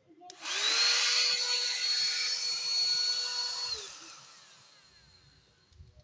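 Mini vacuum cleaner switched on, its small motor spinning up to a steady whine over a rush of air, then switched off after about three and a half seconds and winding down.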